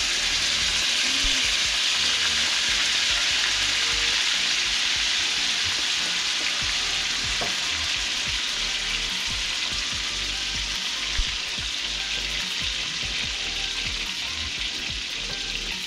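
Trout fillets sizzling in butter in a cast-iron skillet: a steady frying hiss that eases slightly over time, with one light click about eleven seconds in.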